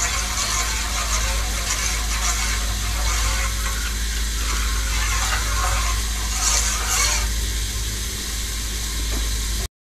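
Metal spoon stirring dissolved green jelly mixture in hot water in a steel pot, the liquid swishing, over a steady hiss and low hum. The sound cuts off abruptly near the end.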